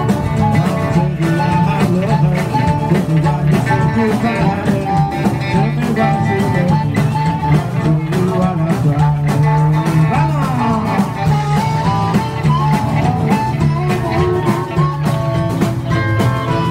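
Live rockabilly band playing an instrumental break: a harmonica plays long, bending notes over electric guitar, upright bass and a steady drum beat.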